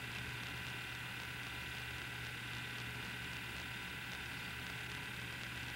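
Steady hiss with a low electrical hum: the recording's background noise between spoken remarks, with nothing else happening.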